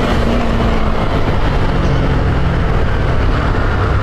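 Honda CG 150 Titan's carbureted single-cylinder four-stroke engine running steadily under way, with its air filter and intake hose removed, mixed with wind rushing over the action camera.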